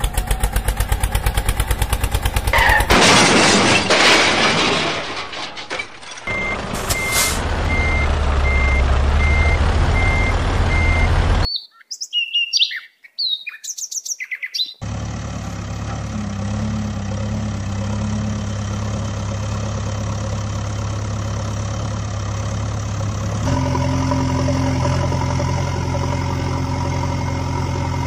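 A sequence of dubbed vehicle sound effects: a fast rattle, a burst of noise, a reversing alarm beeping evenly over a low engine hum, and a few seconds of bird chirps. A vehicle engine then runs steadily for the second half, its note shifting slightly near the end.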